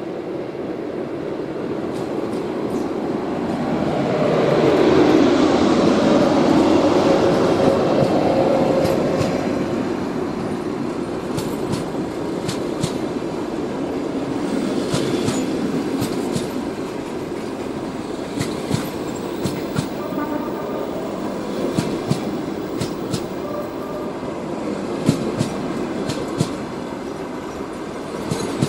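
ChS4 electric locomotive passing close by, its steady hum and rumble swelling to a peak a few seconds in. The passenger coaches then roll past, with their wheels clicking irregularly over the rail joints.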